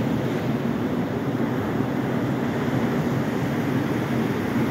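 Surf washing up a sandy beach: a steady rushing noise that holds an even level throughout.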